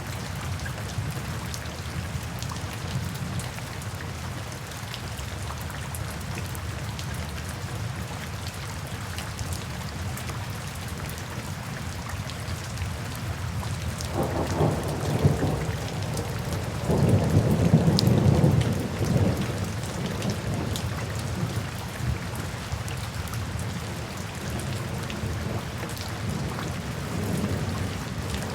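Crackling fireplace fire: a steady low rumble dotted with small sharp crackles. About halfway through, a louder rolling rumble swells twice.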